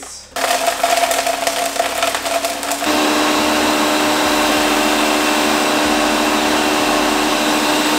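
Countertop blender crushing ice: a rough, uneven grind as the ice chunks break up, which about three seconds in settles into a steady, slightly higher whine as the ice turns to snow, then cuts off.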